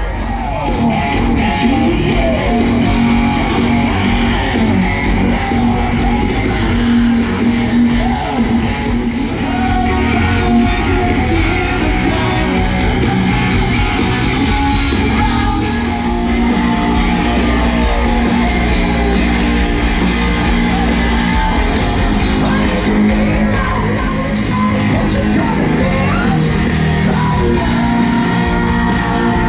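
Live rock band playing with a singer and guitars, heard from amid the audience, with occasional shouts from the crowd.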